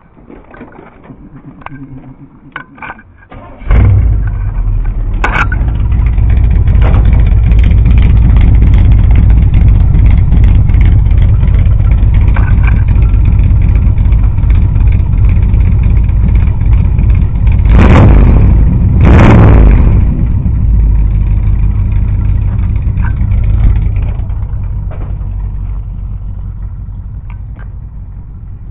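A few knocks, then the modified V8 of a 1987 Chevrolet K5 Blazer starts about four seconds in and idles loud and deep. The engine carries Vortec heads, a high-rise intake, an Edelbrock carburetor, a performance cam, headers and glass-pack mufflers. It is revved twice, briefly, about two-thirds of the way through, and the sound fades somewhat near the end.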